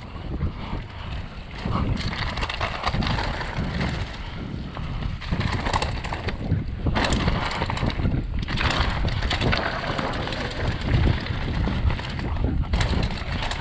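Mountain bike descending a leaf-covered dirt trail: wind buffeting the camera's microphone over the rolling of tyres on leaves and dirt, with the bike rattling and knocking repeatedly over roots and rocks.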